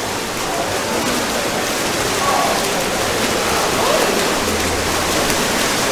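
Steady splashing and churning of pool water as water polo players swim and play.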